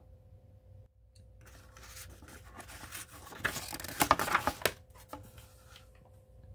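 A Little Golden Book's paper page being turned: rustling that builds from about a second and a half in to its loudest around four seconds, with a few sharp crackles, then dies away before five seconds.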